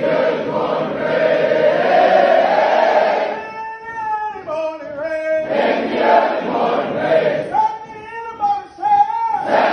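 Army drill sergeant's marching cadence in call and response: a formation of soldiers chants together, and twice a single voice sings a line alone in held, wavering notes, about four seconds in and again near the end.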